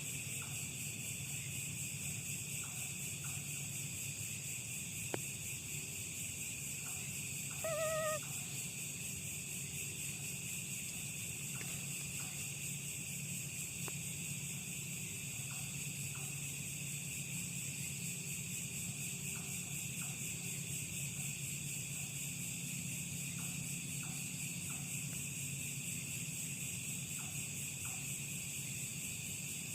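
Steady night chorus of insects, a continuous high shrilling, with one short wavering animal call about eight seconds in and a single sharp click a little before it.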